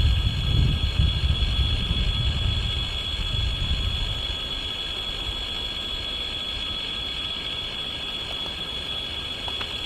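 Railway train rumbling past on the rails; the heavy low rumble dies down about four seconds in and leaves a quieter steady rumble. A steady high-pitched whine runs throughout.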